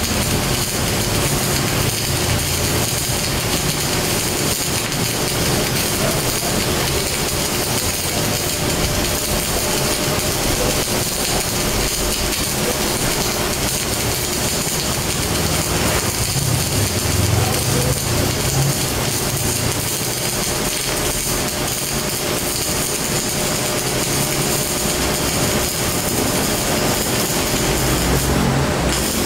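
Steady workshop noise of welding work: a continuous dense hiss over a low machine hum, without letup.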